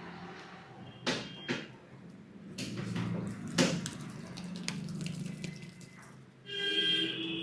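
Hands working over a head during a head massage, with wet rubbing and several sharp slaps, the loudest about three and a half seconds in. A steady low hum runs underneath, and a brief pitched tone starts near the end.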